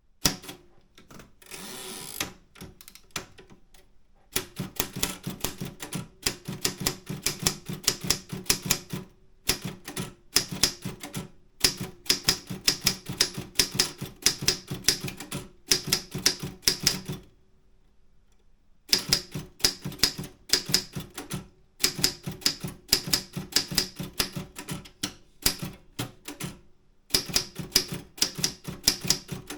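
Optima M10 manual typewriter being typed on: quick runs of key strikes lasting several seconds each, broken by short pauses and one longer pause about two thirds through.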